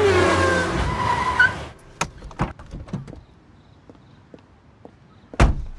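A car braking hard to a stop with a short tire squeal over the engine's rumble. Then come a few sharp clicks of the door opening and heels stepping out, and a loud car-door thump near the end.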